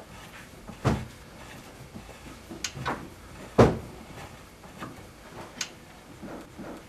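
Scattered metal clicks and knocks of a choke key screwing choke tubes back into a shotgun's barrels, with the loudest knock about three and a half seconds in.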